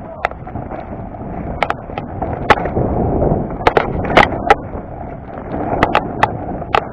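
Mountain bike rolling fast down a rocky dirt trail: a steady rush of tyres on dirt and gravel, broken by sharp clacks and knocks as the wheels strike stones and the bike rattles.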